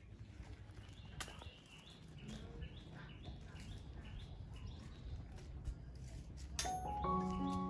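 A bird calling in a steady run of short rising high notes, roughly two to three a second, over faint outdoor background. Near the end, background music with bell-like tones begins.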